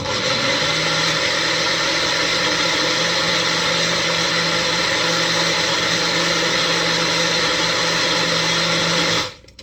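Magic Bullet personal blender running, blending a smoothie: a loud, steady motor whir that starts suddenly and cuts off about nine seconds in.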